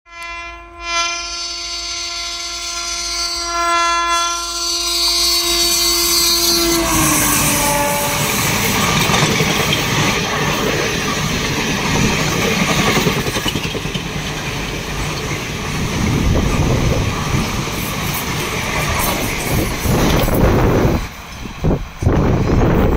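WAP-4 electric locomotive horn held for about seven seconds, dropping in pitch as the locomotive passes, then the rumble and wheel clatter of the ICF passenger coaches running past at speed, fading out about two seconds before the end.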